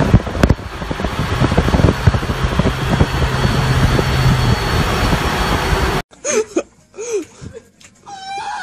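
Steady road and wind noise of highway traffic heard from a moving car, with a low engine hum. About six seconds in it cuts off abruptly to near quiet and a few short voice sounds.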